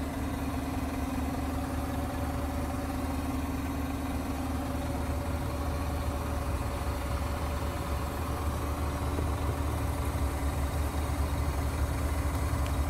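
Scania G480 truck's diesel engine idling steadily at about 600 rpm, heard from inside the cab.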